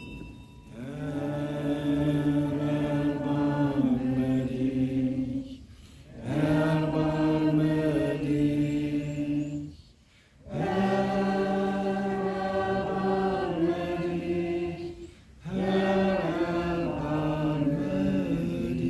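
A group of voices singing a slow liturgical chant in four phrases, each a few seconds long with held notes that step in pitch and a short breath between phrases.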